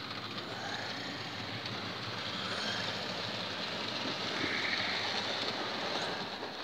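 Rivarossi 2-6-6-6 model locomotive and its wagons running along the layout's track: a steady running rumble that grows louder as the locomotive comes close, loudest about five seconds in, then easing.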